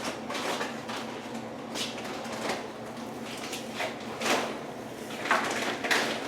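Intermittent light clicks and knocks of small engine parts and hand tools being handled during work on a small engine's PCV valve, about six separate knocks, the loudest in the second half.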